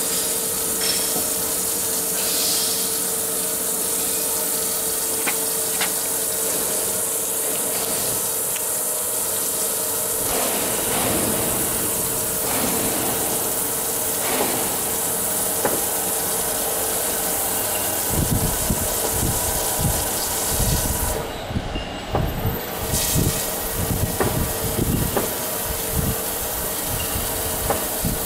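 Wire-cut EDM machine running: a steady hiss of flushing dielectric liquid over a steady electrical hum. Irregular low thumps join in about two-thirds of the way through.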